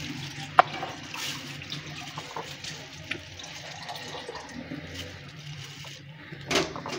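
A spoon dropping dollops of yogurt onto raw chicken pieces in a bowl: soft wet plops with a sharp click about half a second in and another near the end, over a steady hiss.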